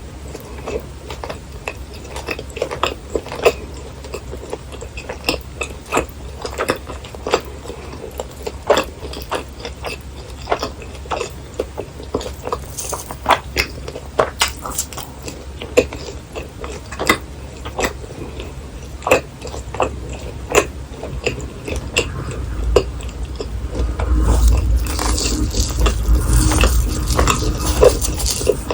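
Close-miked biting and chewing of crunchy fried snacks, with many short, sharp crackles. Near the end the sound grows louder and a low rumble rises under the crunching.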